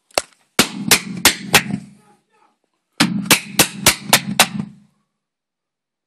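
Two bursts of loud, rapid bangs, about three a second: five in the first burst, then after a pause of about a second six more, each burst ringing low beneath the strikes.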